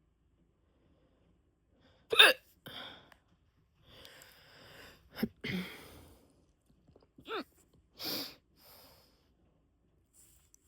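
A person hiccuping: three sharp hiccups a few seconds apart, the first the loudest, with audible breaths in between.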